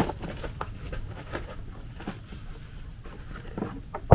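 Handling noise as an acetylene B-tank and its rubber hose are lifted out of a soft tool bucket: a sharp click at the start, then light scattered knocks and rustling.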